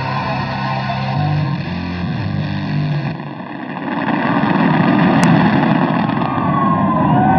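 Music with sustained low notes fades out about three seconds in, and a loud, even rushing noise takes over.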